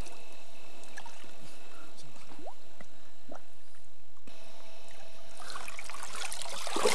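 Shallow river water splashing and trickling around a big golden mahseer held at the water's edge. It is faint at first, then becomes loud splashing over the last second and a half.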